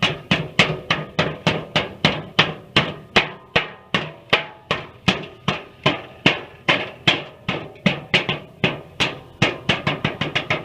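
Hammer striking the steel fire pit and patch plate in a steady run of blows, about three or four a second and a little quicker near the end, each blow ringing out metallically.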